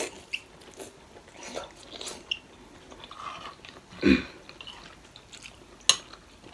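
Two people chewing and biting soft momo dumplings in jhol achar sauce, with soft wet mouth sounds and small clicks of spoons on plates. One louder bump about four seconds in and a sharp spoon clink near the end.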